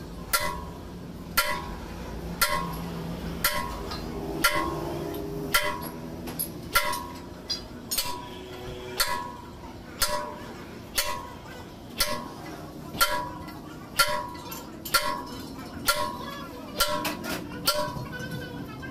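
Heavy hammer striking a steel truck rear axle housing, about one blow a second, sometimes two in quick succession; each blow rings briefly.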